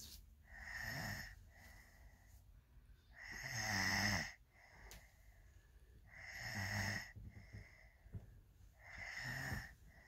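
A sleeping young child snoring: four slow snoring breaths about three seconds apart. The one about four seconds in is the loudest.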